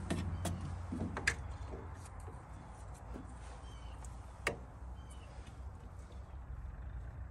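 Light metal clicks and knocks of a battery jumper-cable clamp being handled and connected at the truck's starter, a few scattered taps over a faint steady low hum.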